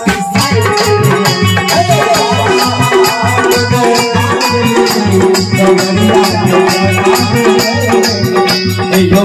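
Instrumental interlude of a Maithili Shiv Nachari devotional song played live: an electronic keyboard melody over a steady drum beat of about three strokes a second, with crisp rattling percussion keeping time.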